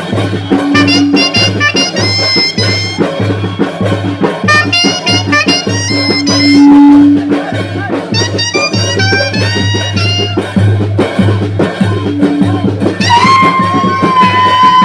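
Festive band music: a steady drumbeat about twice a second under a quick, high melody line, with a long held note coming in near the end.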